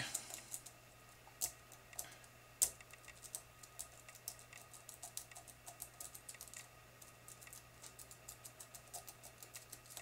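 Faint, irregular small metallic clicks and ticks of a lock pick working the biaxial pins of a Medeco mortise cylinder held under tension. The pins are being rotated one by one in search of a binding pin. A few sharper clicks stand out in the first three seconds.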